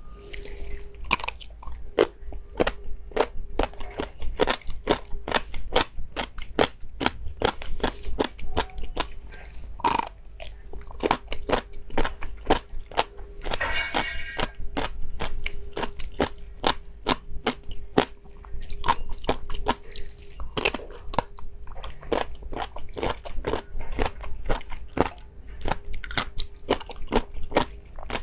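Crunchy food being bitten and chewed close to the microphone, a dense run of crisp crunches.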